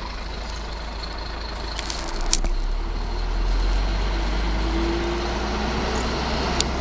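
Truck engine heard from inside the cab, its low rumble growing about two seconds in as the truck moves off, with the engine note rising gently over the following seconds. A few short sharp clicks come around two seconds in and again near the end.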